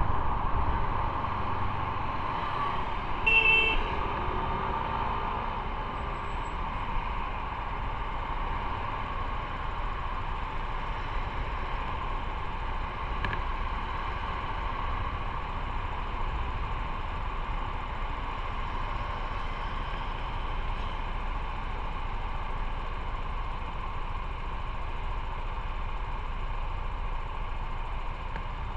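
Riding noise from a motorcycle on a city road: steady engine and road rush. A vehicle horn toots briefly about three seconds in.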